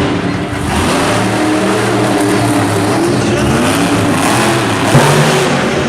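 Monster truck engine revving, its pitch rising and falling, with a sudden loud thump about five seconds in.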